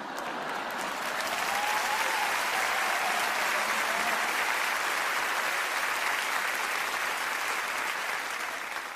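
Theatre audience applauding, building over the first couple of seconds, holding steady, then easing off near the end.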